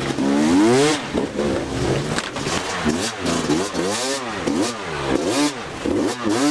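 Off-road motorcycle engine revved hard and let drop over and over, rising and falling in pitch about twice a second after one long, loud rise near the start.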